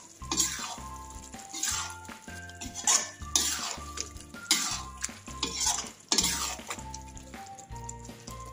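Metal spatula stirring and scraping thick paneer masala around a metal kadai in repeated strokes, about one a second, with a light sizzle from the frying masala.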